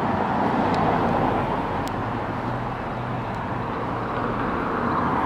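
Road traffic on a city street: cars passing with a steady rush of tyre and engine noise, a faint low engine hum showing through in the middle.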